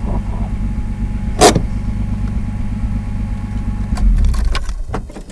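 Datsun 280Z's turbocharged L28ET straight-six running at idle, steady and low. There is one sharp click about a second and a half in, and a louder, deeper rumble for about a second near the end.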